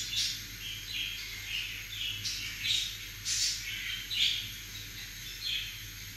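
Birds chirping in short, irregular calls, a few each second, over a faint low steady hum.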